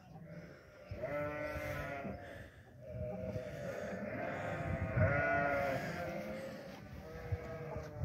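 Sheep bleating, one call about a second in, then several overlapping bleats from about three seconds in.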